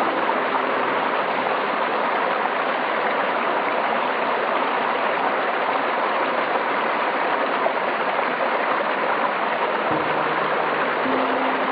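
Steady, even rushing water noise of rain and flowing water, with no breaks or changes in level. A faint low hum comes in briefly about ten seconds in.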